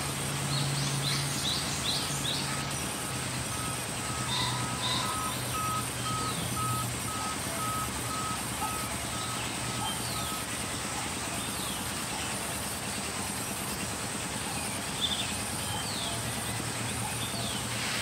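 Sawmill saw running steadily as planks are fed through it, a constant machine hum and cutting noise. From about two seconds in until about ten seconds in, an electronic beeping at about two beeps a second sounds over it, like a vehicle's reversing alarm.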